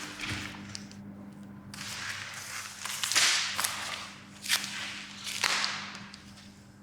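Foley swishes of something swung fast through the air: a longer one about three seconds in, then two sharper ones about a second apart.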